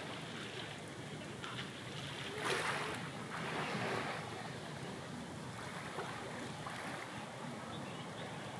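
Sea waves washing in with wind on the microphone, two louder surges of surf about two and a half and three and a half seconds in.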